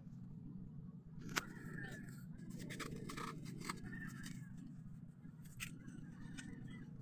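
Fingers digging and scraping in wet sand, with a few sharp clicks, over a steady low rumble.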